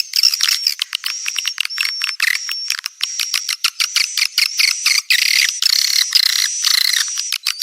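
Swiftlet calls: a dense, unbroken stream of rapid high-pitched chirps, clicking trills and short whistled notes. This is a courtship-call ('birahi') lure recording of the kind played from swiftlet houses to draw edible-nest swiftlets in to roost.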